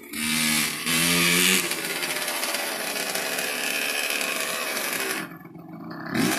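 Dirt bike engine revving hard as the bike is ridden. The throttle eases off about five seconds in, then the engine revs up again near the end.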